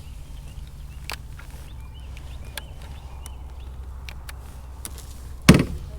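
Open-air ambience on a lake: a steady low rumble with faint bird chirps and a few scattered clicks, then a single loud knock about five and a half seconds in.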